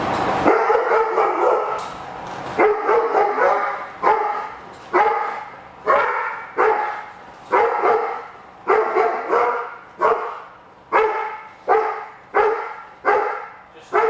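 Doberman barking in a steady, repeated run, about one and a half barks a second after a quicker flurry at the start, each bark echoing in a large covered enclosure. This is reactive barking at another dog.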